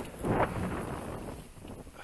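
Wind buffeting the microphone, a low rumble that dies down toward the end, with a brief voice sound just after the start.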